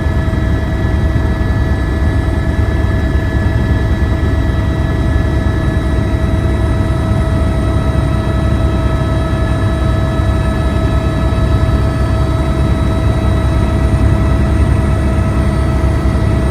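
Steady loud machine rumble with a constant high whine over it, unchanging in pitch and level.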